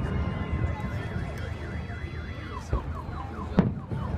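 Car alarm sounding, warbling at first and then switching to fast rising-and-falling whoops, about five a second, in the second half. A single firework bang cuts in loudly about three and a half seconds in.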